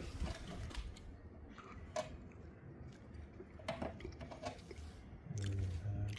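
Faint scattered clicks and taps of small metal electrical fittings being handled and fitted, with a short low hum near the end.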